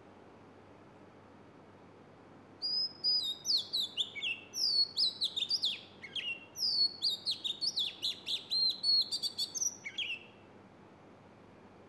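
A bird singing a long, varied song of quick, sharply falling whistled notes, starting about two and a half seconds in and stopping near the end.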